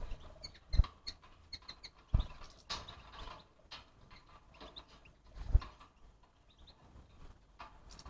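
A horse's hooves stepping on the ground: a few separate dull thuds, about a second in, two seconds in and five and a half seconds in, with faint high chirps in between.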